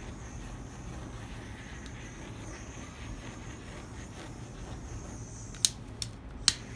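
Small handheld torch hissing steadily as its flame is passed over wet black acrylic paint to pop bubbles, with three sharp clicks near the end.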